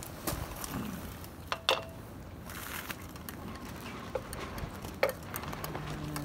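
A few light clicks and taps of hands handling parts around the carburetors of a Honda three-cylinder four-stroke outboard, near the plastic float-bowl drain tube, over a low steady background.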